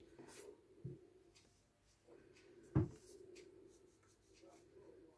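Faint scratching of a pyrography pen tip drawn over a wooden tile, with a soft thump about a second in and a louder, sharp knock near the middle.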